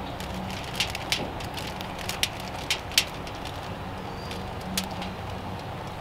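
Campfire crackling: sharp pops at irregular intervals, about six of them, over a steady low background hum.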